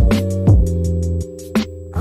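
Background music with a steady beat: a kick drum about twice a second and quick hi-hat ticks over sustained bass and chords. The drums and bass drop out for a moment in the second half.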